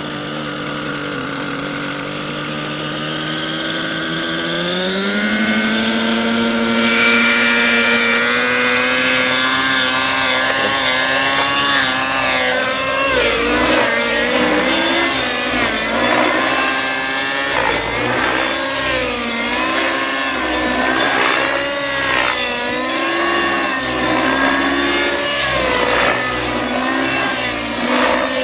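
Aeolus 50 nitro RC helicopter's glow engine running, its revs rising about four to six seconds in as the rotor spools up. It then runs in flight with its pitch swinging up and down again and again.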